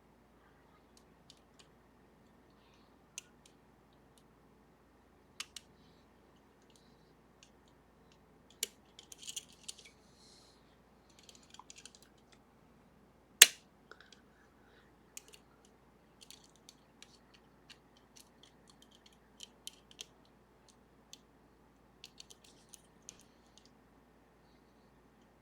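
Small, scattered metallic clicks and short scratching sounds as a pick works the serrated levers of a Sargent and Greenleaf 4440 series safety deposit box lever lock. There is one sharper, louder click about halfway through.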